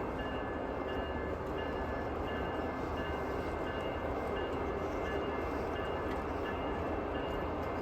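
Train rolling past: a steady rumble and rush of wheels on rails, with a faint high tone repeating a little under twice a second.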